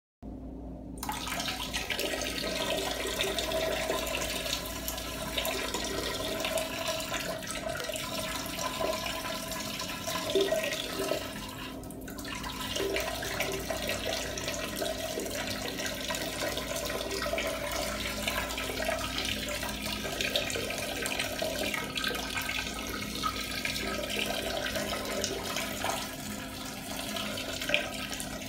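A person urinating: a steady stream of urine splashing, with a brief break about twelve seconds in.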